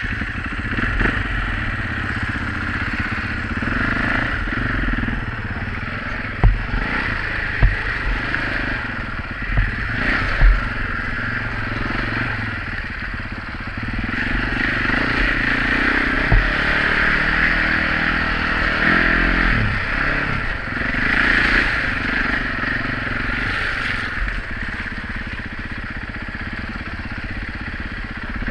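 Enduro motorcycle ridden over a muddy, rutted forest track, its engine running steadily as heard from a helmet-mounted camera, with a few sharp knocks over bumps in the first half.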